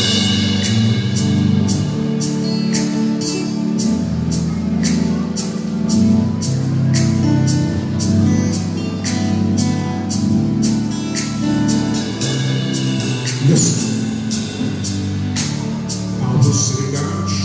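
Live band music: a drum kit keeps a steady beat, with cymbal strikes about twice a second over sustained bass and chord instruments.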